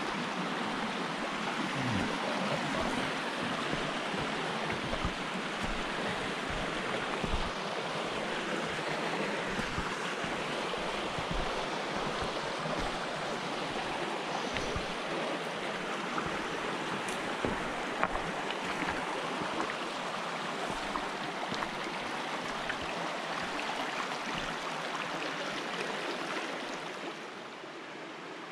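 Mountain creek rushing over rocks, a steady hiss of running water, with short low thumps beneath it. Near the end it becomes a little quieter.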